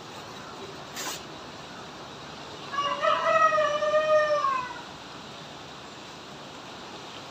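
A rooster crowing once, a call of about two seconds that starts broken and falls away at the end. A short sharp click sounds about a second in, over a steady hiss.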